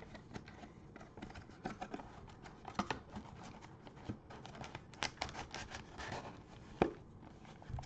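Plastic wrapping on trading-card packs being torn open and crinkled, a run of faint crackles and small snaps, with one sharper snap a little before the end.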